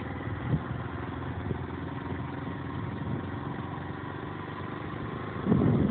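Motorcycle engine running steadily, growing louder near the end.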